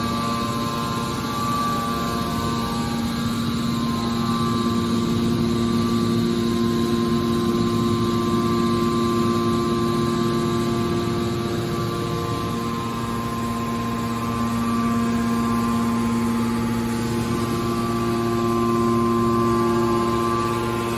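Scrap car baler's hydraulic machinery running with a steady hum of several held tones over a constant rushing noise; the tones change slightly about twelve seconds in.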